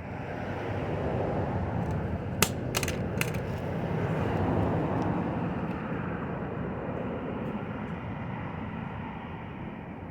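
A road vehicle passing, its noise swelling to a peak midway and fading away, with a few sharp metallic clicks about two and a half to three seconds in.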